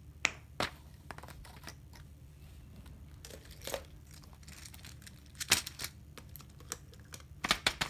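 Paper rustling and small plastic fidget toys being set down on it: scattered sharp clicks and taps with short crinkles, the loudest a little over five seconds in and a quick cluster near the end.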